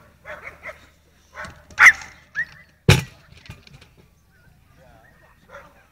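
Agility seesaw plank banging down onto the ground as the dog tips it, one sharp bang about three seconds in.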